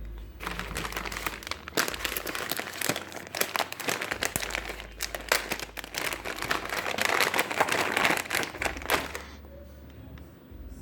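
Packaging crinkling and rustling as it is handled and opened by hand during the unboxing of a squishy toy. The dense crackling starts about half a second in and stops about a second and a half before the end.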